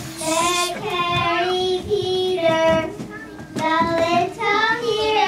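Young children singing a song, holding long notes, with a brief pause about halfway through.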